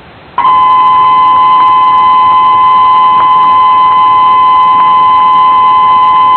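Emergency Alert System attention signal: a loud, steady two-tone alarm that starts about half a second in and holds unbroken, over a faint hiss.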